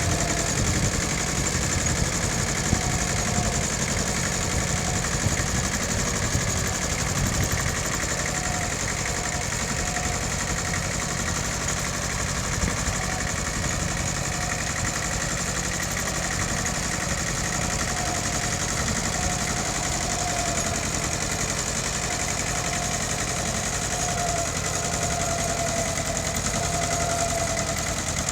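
Engine of a Mitsubishi tractor running steadily while ploughing, with a faint wavering whine over it.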